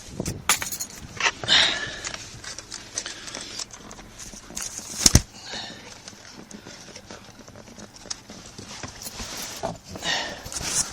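Scattered knocks, clicks and rustling from hands handling parts under a car's dashboard during reassembly, with the sharpest knock about five seconds in.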